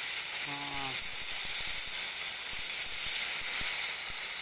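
Oxy-acetylene cutting torch hissing steadily as its flame cuts through a steel bar.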